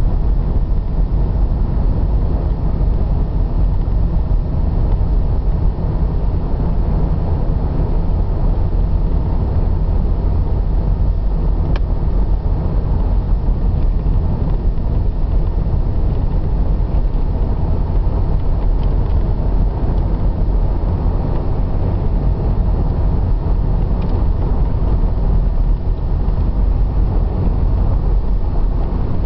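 Car driving along a paved road, heard from inside the cabin: a steady low rumble of engine and tyres, with a couple of faint clicks.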